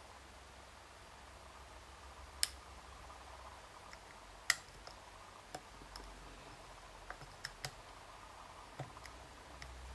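Sharp metal clicks of a dimple pick and tension tool working the pins inside an Abus D10 dimple lock cylinder: a handful of separate clicks, two louder ones about two and a half and four and a half seconds in, then several lighter ones.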